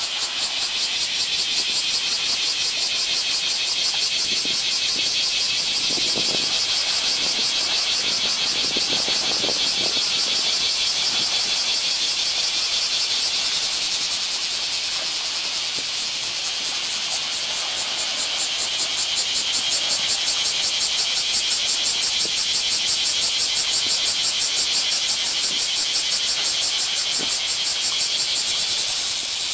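A loud, steady, high-pitched buzzing hiss with a fast, even pulse, over a few faint splashes from Asian elephants wading and rolling in a pool.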